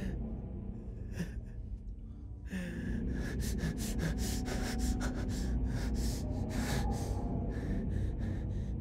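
A man breathing hard and gasping, a few ragged breaths at first, then quick heavy breaths several a second from about two and a half seconds in, over a low steady hum.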